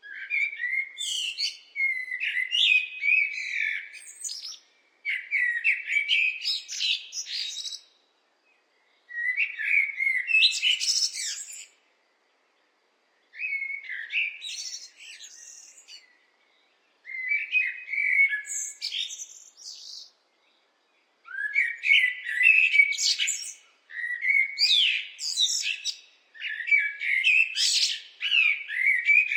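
Blackbird singing: about eight phrases of a couple of seconds each, separated by short pauses, each a lower fluting warble that runs into higher, squeaky twittering.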